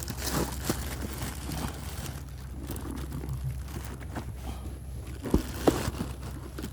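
Rustling and handling noises over a low steady hum, with two sharp knocks close together near the end.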